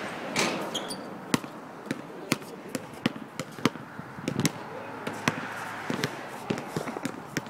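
A basketball being dribbled on a hard outdoor court: a string of sharp bounces at an uneven pace.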